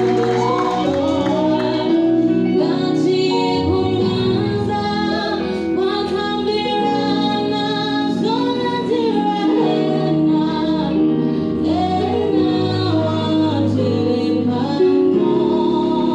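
Gospel song with a woman singing over instrumental backing, at a steady level.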